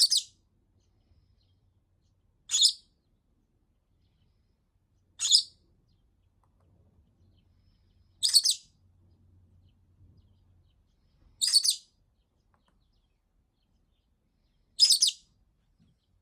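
Pet lovebird giving loud, shrill single calls, one about every three seconds, six in all, repeated insistently: contact or attention calling, which the owner puts down to frustration at not being let out to play for over a week.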